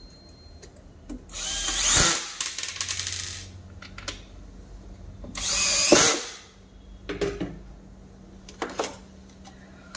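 Cordless drill-driver running twice in short bursts, each a rising whine that stops suddenly as a screw is driven home into the vacuum cleaner's plastic housing. Two brief knocks follow near the end.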